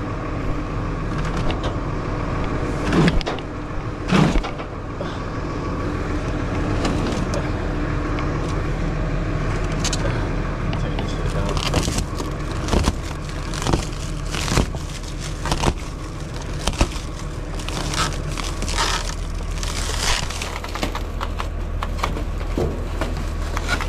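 Delivery truck's engine running with a steady low hum, with scattered knocks, clanks and rattles throughout, more of them in the second half.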